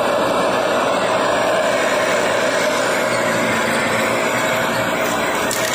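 Dyson Ball Multi Floor 2 upright vacuum cleaner running steadily: a constant motor and rushing-air noise with a steady hum.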